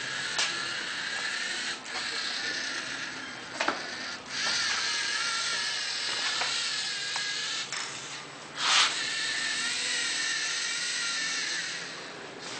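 LEGO Mindstorms NXT geared servo motors whining as the robot drives and turns, the whine wavering in pitch and stopping and starting several times. A short, louder burst of noise comes about two thirds of the way through.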